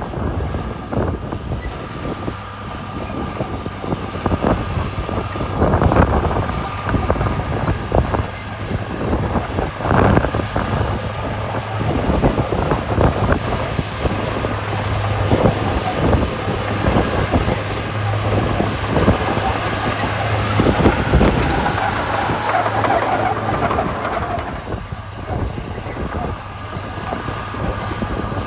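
Komatsu D41P bulldozer's diesel engine running steadily under load, with irregular clanking and crunching from its tracks and the gravel it pushes. A high hiss stops suddenly near the end.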